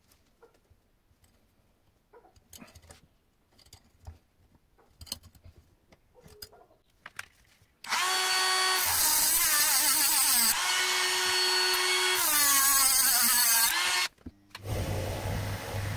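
Handheld rotary tool with a small cut-off disc running at high speed, its whine dipping in pitch twice as it cuts a thin steel rod, lasting about six seconds. Before it, faint clicks and knocks of metal handled in a bench vise; near the end a lower, steady machine hum starts.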